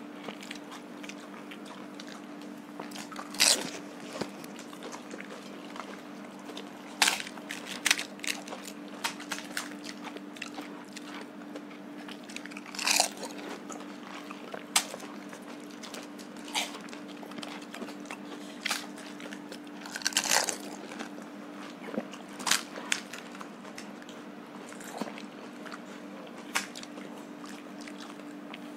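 Crisp, hollow fuchka (panipuri) shells cracking as fingers poke them open and teeth bite and crunch them. Sharp crackles come irregularly, a second or a few seconds apart, over a steady low hum.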